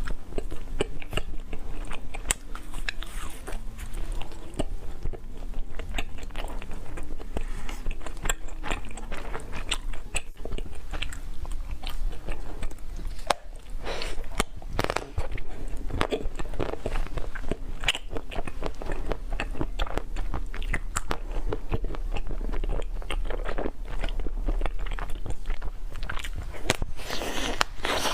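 Close-up eating sounds: a person biting into and chewing crunchy food, with loud, irregular crunches and crackles throughout.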